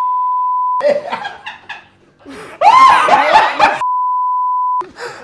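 Censor bleep, a steady beep tone cutting off a swear word. It is followed by a burst of laughing and shrieking, and a second bleep a little under four seconds in.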